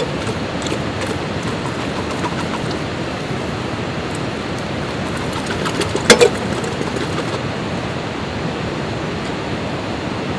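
A metal food can knocked against the rim of a camping stove pot while its ravioli is worked out into the pot: one sharp knock at the start and two or three louder knocks about six seconds in, over a steady rushing noise.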